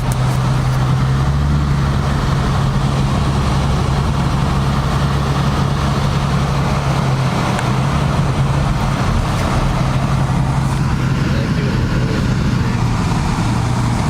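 Car driving, heard from inside the cabin: a steady low engine drone with road and tyre noise, holding level throughout.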